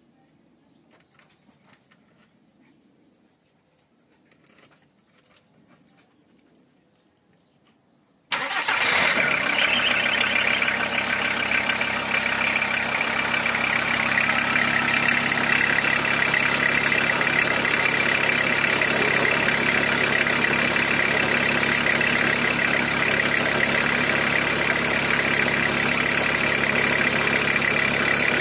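Volkswagen T4's 2.4 five-cylinder diesel engine starting suddenly about eight seconds in, after near-quiet, then settling into a steady idle.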